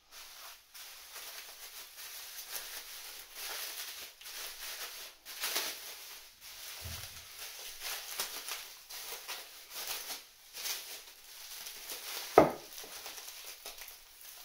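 Clear bubble wrap crinkling and rustling, irregular and continuous, as it is peeled off a machined part by hand. A soft thump comes about seven seconds in, and a single sharp knock about twelve seconds in is the loudest sound.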